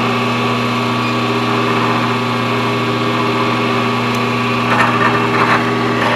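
Grizzly vertical milling machine's spindle motor running with a steady electric hum, an edge finder turning in the collet. A few brief rattles come through about five seconds in.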